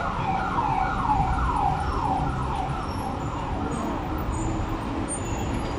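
Emergency vehicle siren in a fast yelp pattern, a falling wail repeating about three times a second, which stops about two seconds in. Street traffic rumbles underneath.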